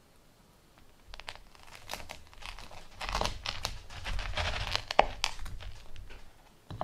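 A kitchen knife sawing through a crisp, charred pizza crust on a plastic cutting board: a run of crackling, crunching strokes that starts about a second in, with one sharp knock a little past the middle.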